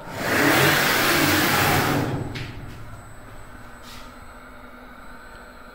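CNC router gantry traversing on its servo-driven ball screw and linear rails: a loud whirring rush that swells and dies away over about two seconds, followed by a couple of faint clicks.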